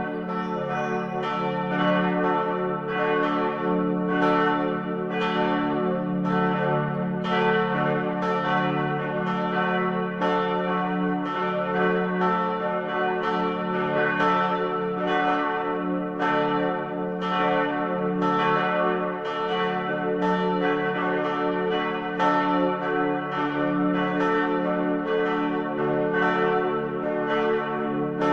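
Church bells ringing steadily, about one and a half strikes a second, each stroke's ring overlapping the next.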